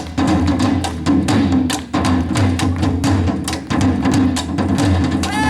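Korean traditional percussion ensemble playing: deep drums and sharp clicking strokes in a dense, driving rhythm.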